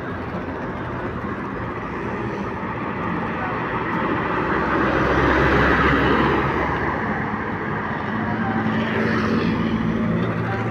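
Road traffic: a steady engine hum with a vehicle passing close, swelling and fading about five to six seconds in, and another passing more faintly near the end.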